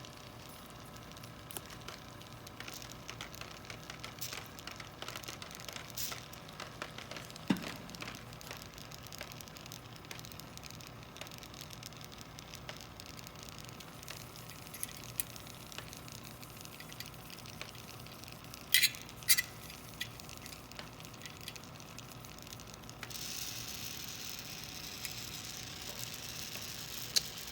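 A continuous inkjet printer runs with a steady low hum while it is being hand-adjusted, with scattered small clicks and taps and a few sharper clicks. A steady hiss starts a little after three quarters of the way through.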